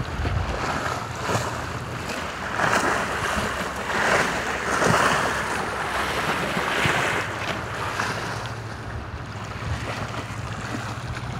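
River waves washing and splashing against a sloping bank, swelling and falling back in irregular surges, with wind buffeting the microphone.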